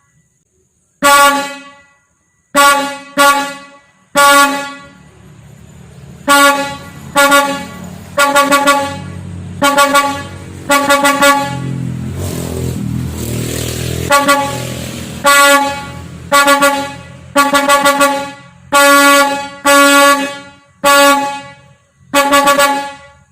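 Truck horns sounding in a string of blasts, some held for about a second and some in quick double and triple toots, each at one steady pitch. A low engine rumble runs under the horns through the middle stretch.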